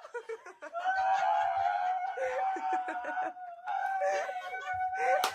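Young women laughing and squealing. A long, high-pitched held squeal breaks off briefly midway, then resumes.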